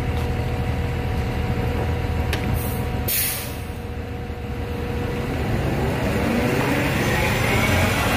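Orion VII Next-Gen hybrid-electric city bus idling at the curb, with a loud hiss of air about three seconds in. It then pulls away, and its engine and drive rise in pitch and grow louder as it accelerates.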